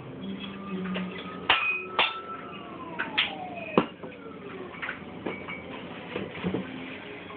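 Empty glass wine bottles clinking against each other as they are handled in a cardboard box: about half a dozen sharp clinks, some with a short ring, and a tone that slides downward in the middle.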